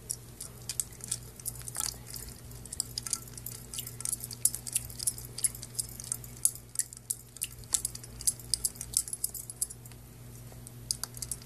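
Ice cubes clinking against a stainless steel dog bowl and against each other, with water splashing, as a Maltese puppy paws at them. It comes as a busy, irregular run of sharp clinks that thins out near the end.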